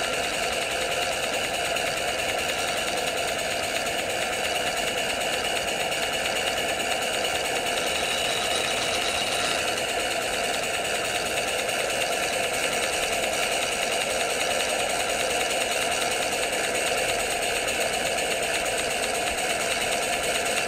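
Model Dolbeer steam donkey engine running fast and steady, a rapid, even mechanical chatter, as it winches logs in along the ground.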